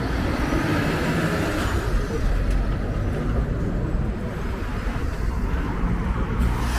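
Road traffic on a busy street: vehicle engines and tyres passing in a steady low rumble.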